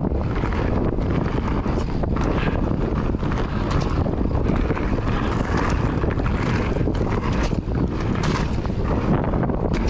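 Wind buffeting the microphone of a camera on a mountain bike riding fast down a gravel trail, over the steady rolling noise of the tyres on loose gravel, with scattered clicks and rattles from the bike.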